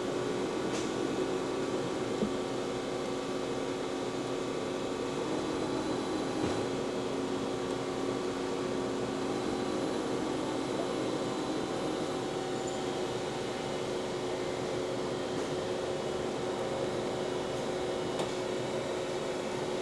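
Steady hum of a powered-up CNC cylindrical grinder, its motors and pumps running with several constant whining tones, plus a few faint clicks.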